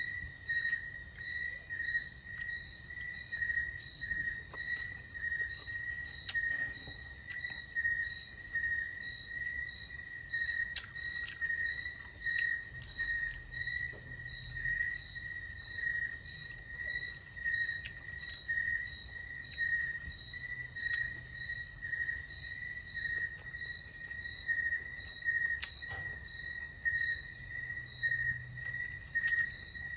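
Insects calling steadily in the countryside: one high, shrill trill that swells and fades in an even pulse a little faster than once a second.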